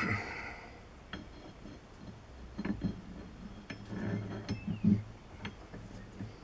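Scattered metallic clinks and knocks of metal parts and tools being handled, the sharpest right at the start with a brief ring.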